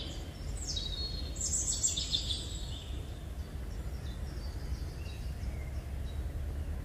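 Wild birds chirping and calling, with a burst of high chirps between about one and three seconds in and fainter calls after, over a steady low rumble.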